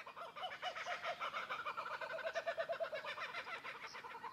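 Birds calling in a fast, continuous chatter of short repeated notes, several voices overlapping.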